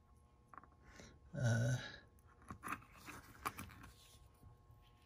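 Faint clicks and light scraping of small metal parts as a thread-insert installation tool with an insert on its tip is handled, with one brief, louder low-pitched sound about a second and a half in.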